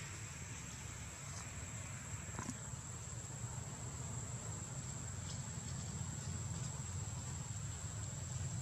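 Steady outdoor ambience: a continuous high-pitched insect drone over a low rumble, with a few faint ticks in the first few seconds.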